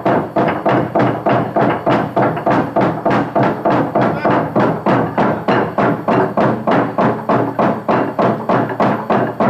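Drums beaten in a steady, even rhythm of about three strokes a second, as for a traditional Sepik spirit dance.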